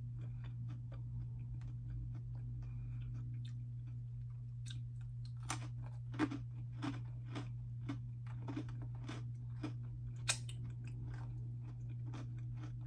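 Close chewing of crunchy Cheetos pretzels, with irregular sharp crunches, some louder after about five seconds. A steady low hum runs underneath.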